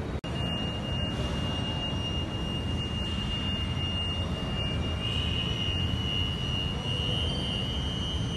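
Steady rushing background noise of a metro station concourse, with a thin, continuous high-pitched tone running through it.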